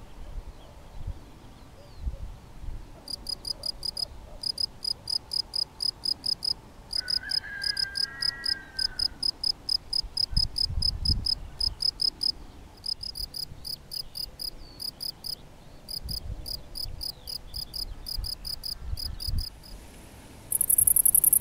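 Male European field cricket (Gryllus campestris) singing its calling song by rubbing its raised wings together: high chirps, several a second, in runs broken by short pauses. Near the end a great green bush-cricket (Tettigonia viridissima) starts up with a much louder, continuous high buzzing song.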